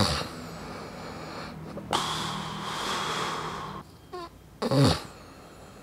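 A man snoring in his sleep: two short snorts that fall in pitch, one at the start and one about five seconds in, with a long rasping breath carrying a thin whistle between them. It is the sound of an airway partly blocked by the tongue base collapsing, where breath seems to go in but not come back out.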